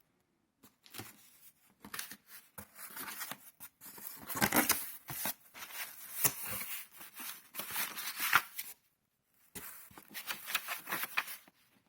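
Cardboard shipping box being opened by hand: irregular tearing, scraping and rustling of tape and cardboard flaps, with a brief pause about nine seconds in.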